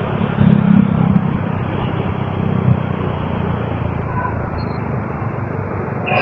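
Motorcycle riding along: a steady rush of wind and road noise over the engine running.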